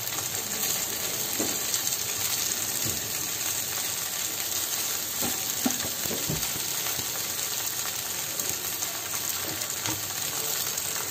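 Hot oil sizzling steadily on a flat tawa as halved raw bananas shallow-fry in it.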